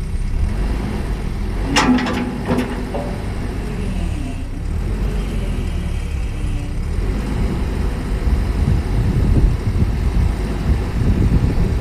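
Fuel-injected engine idling unevenly with a coughing misfire, which the owner puts down to a badly faulty injector.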